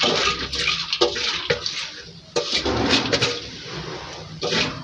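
Water splashing and pouring in uneven gushes, with a few clicks, as freshly washed wet beans are handled.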